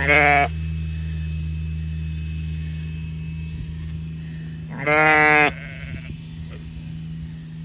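Two loud sheep bleats, one at the start and one about five seconds in, from ewes being run by a loose dog. Under them a utility vehicle's engine runs with a steady low hum that fades after the second bleat.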